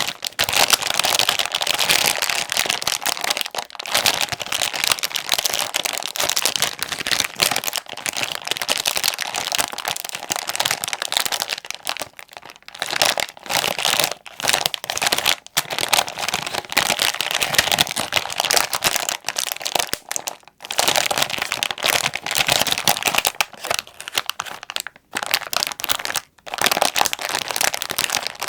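Plastic wrapper of a Jin Ramen mild instant-noodle packet being crinkled and squeezed by hand: a dense, continuous crackle with a few brief pauses.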